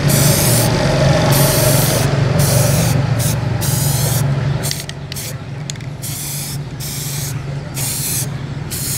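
Aerosol spray paint can hissing in many short bursts, stopping and starting, as paint is sprayed onto a metal tube frame. A low steady hum runs underneath, dropping off about halfway through.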